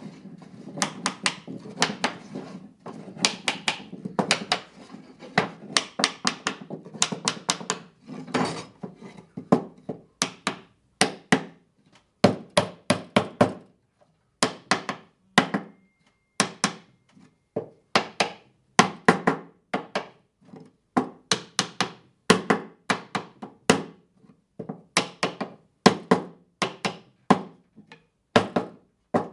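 Small hammer tapping the corner joints of a wooden picture frame together, in quick runs of two to four sharp knocks with short pauses between runs.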